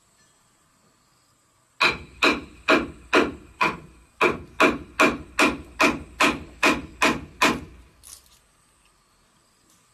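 A wooden mallet striking a chisel as it cuts into a wooden beam: about fifteen sharp knocks at a steady two to three a second, starting about two seconds in and stopping near the end.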